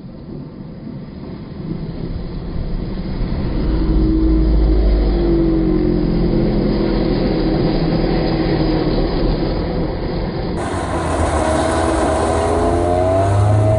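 Snowmobile engine revving as the sled spins in circles on ice, its pitch rising and falling. The engine note climbs again near the end.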